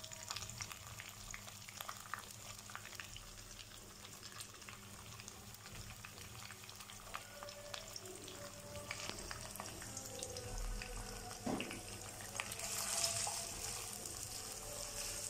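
Sliced onions and curry leaves sizzling faintly in hot oil in a nonstick wok, with a fine steady crackle. About twelve seconds in, a spatula stirs them, adding scrapes and clicks and a louder sizzle.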